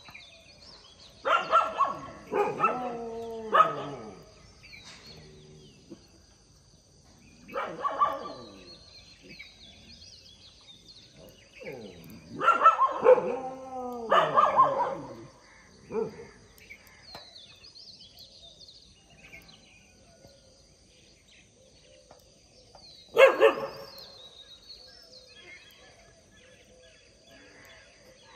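Street dogs barking in about five bouts of one to two seconds each, with quiet gaps between them, during a fight between dogs. A steady high insect drone runs underneath.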